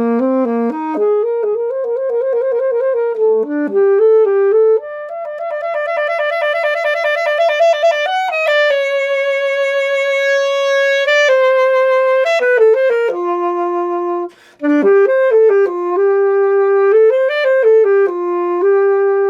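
Saxophone playing a melody of single notes, with a fast wavering, trilled passage a few seconds in, a long held note around the middle, and a brief break about three quarters of the way through.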